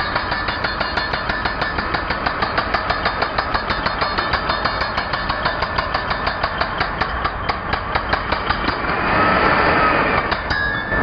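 Ingco 16 kg electric concrete breaker hammering, a steady run of about four to five blows a second. About nine seconds in the blows stop and a louder, steadier noise takes over briefly.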